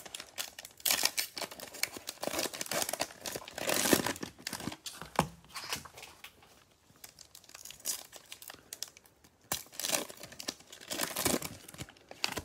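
Plastic cello wrappers of Panini Mosaic football card packs crinkling and tearing as they are ripped open by hand, in irregular bursts. A quieter stretch comes in the middle, then a second pack is torn open near the end.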